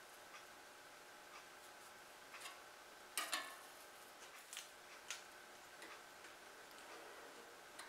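Near silence broken by a few faint clicks and taps of hand tools on a steel sheet: a marker drawing on the plate, then a pair of spring dividers being set down and positioned. The strongest is a quick double tap about three seconds in.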